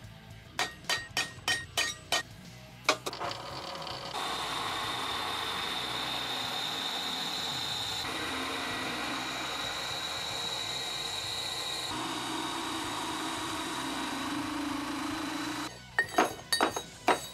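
A hammer tapping a centre punch into a thick steel piece cut from a rail, about seven sharp strikes. Then a drill press boring through the steel with a steady high-toned grind for about eleven seconds, followed near the end by a few sharp metallic clinks.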